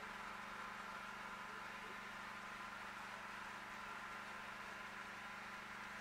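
Steady low hum under an even hiss, with no distinct events.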